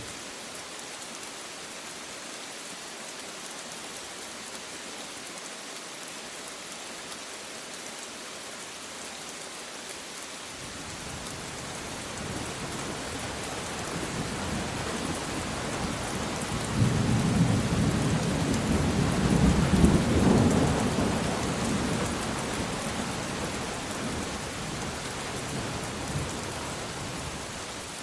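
Steady rain falling, with a long roll of thunder that builds from about a third of the way in, is loudest a little past the middle and dies away near the end.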